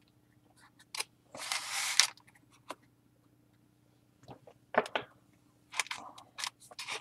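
A stack of trading cards being handled on a wooden table: papery rustles and slides, about a second and a half in and again near the end, with scattered light clicks and taps between them.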